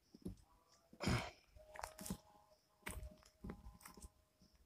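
Footsteps crunching irregularly on dry soil and stubble, with knocks from the phone being handled. A few faint held tones sound in the background.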